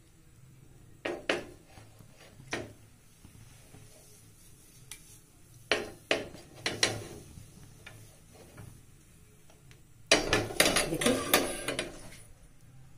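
Iron tawa knocking and clanking against a gas stove's burner as it is held upside down over the flame and turned around. A few separate knocks, then a longer, louder spell of metal clattering about ten seconds in.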